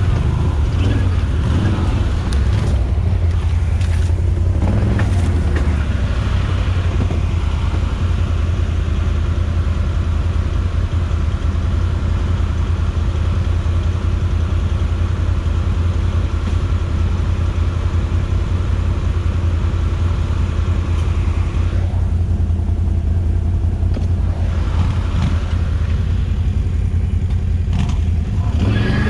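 Can-Am Outlander 1000 XMR ATV's V-twin engine running steadily at a fairly constant speed while riding.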